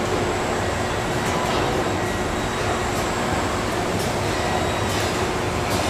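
Steady machinery noise of an automated car-body production line with industrial robot arms at work: a constant hum under an even rushing din, with a few faint clicks.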